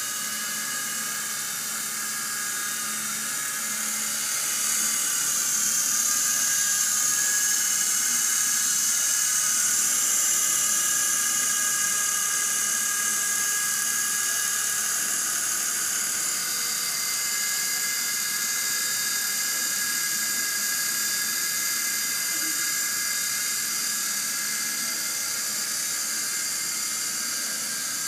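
Small electric motors and rotor blades of a Gyro U6 remote-controlled toy helicopter in flight, giving a steady high-pitched whine that gets a little louder partway through.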